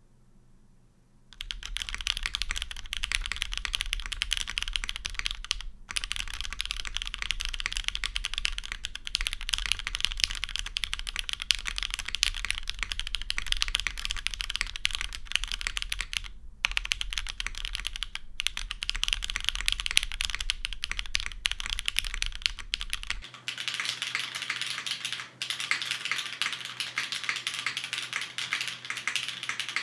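Fast, continuous typing on a custom mechanical keyboard with lubed, polished Hyperglide Cherry MX Black linear switches and GMK keycaps. It starts about a second in and has a few brief pauses.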